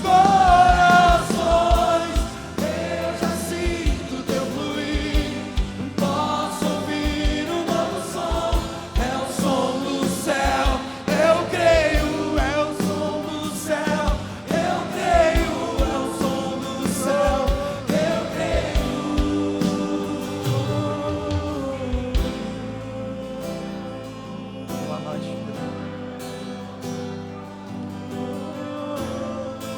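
Live church worship music: a band with a steady drum beat and many voices singing together. About two-thirds of the way through the drums drop out and it eases down to soft, sustained instrumental playing.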